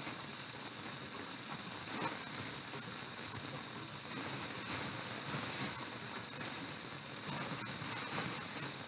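Steady hiss throughout, with a couple of faint short knocks.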